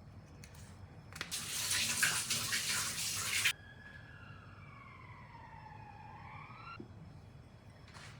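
Tap water running hard into a sink for about two seconds, then shut off abruptly. A fainter tone follows, falling slowly in pitch for about three seconds before it cuts off.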